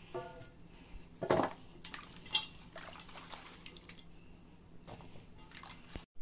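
Water splashing and dripping as a hand swishes and lifts cut raw banana sticks out of a steel bowl of water, with a few short knocks of the pieces against the metal, the loudest about a second in and again about two seconds in.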